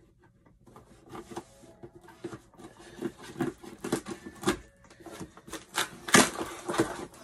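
Scissors cutting through the packing tape on a cardboard shipping box: a run of irregular scratchy clicks and rustles. About six seconds in, the cardboard flaps are pulled open with a few louder scrapes.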